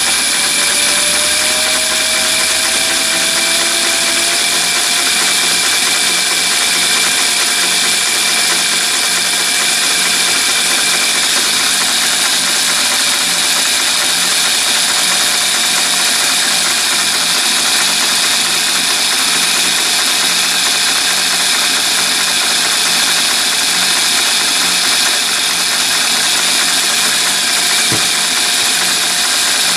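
Three-phase motor on a VFD, driving a mini lathe spindle through a V-belt and stepped pulleys and running steadily at speed. Its whine rises slightly in pitch over the first few seconds, then holds. There is a single short click near the end.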